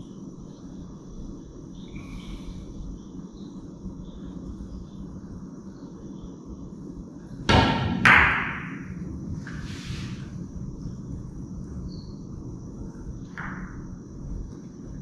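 Three-cushion carom billiards shot: about halfway through, the cue tip strikes the cue ball and, half a second later, a sharp ringing click sounds as the ivory-hard balls collide. Fainter knocks follow as the cue ball runs off the cushions, with a last click near the end as it reaches the third ball.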